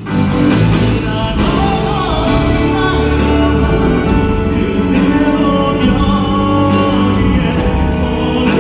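Live concert music played loud through a hall's sound system, with singing.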